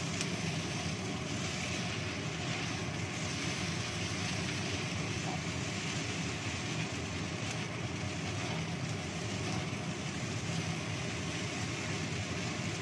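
Lit gas stove burner under a wok giving a steady rushing noise, with rice vermicelli being stir-fried and turned in the pan.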